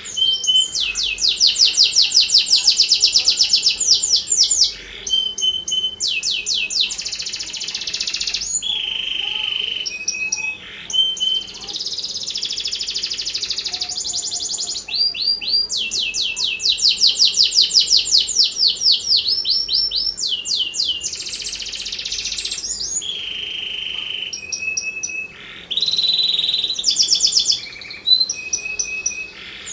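Domestic canary singing a continuous song: long, fast trills of rapidly repeated notes alternating with short steady whistled notes and buzzy passages, with brief pauses between phrases.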